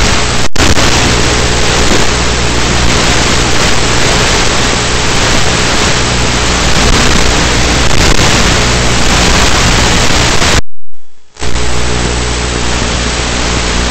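Loud steady hiss with low steady hum tones beneath it, from the FPV plane's flight recording. The sound drops out once for a moment about half a second in, and again for about half a second near the end.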